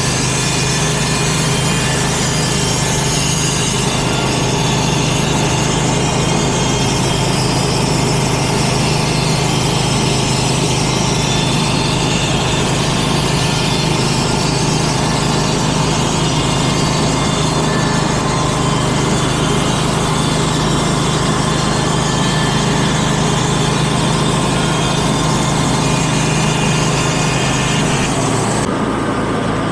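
Wood-Mizer portable band sawmill running under load, its engine holding a steady pitch while the band blade cuts through a log with a dense hiss. Near the end the hiss drops away suddenly and the engine runs on.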